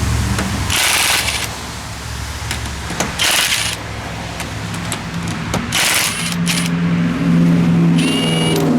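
Ridgid mid-torque impact wrench run in first gear on a lug nut, hammering in three short bursts, about a second in, midway and a little past six seconds. A steady low hum sets in during the second half.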